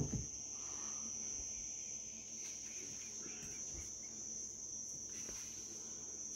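Insects trilling steadily in one continuous high-pitched tone, with a few faint soft knocks now and then.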